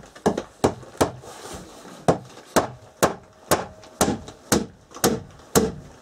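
Hammer driving nails into wooden boards: a run of sharp strikes, about two a second, with a short pause about a second in. Some strikes leave a brief ringing tone.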